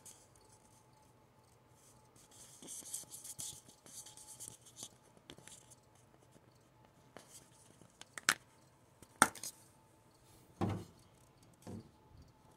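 Faint handling noises: a light rustle for a few seconds, then four sharp clicks and taps about a second apart, the third with a dull thump.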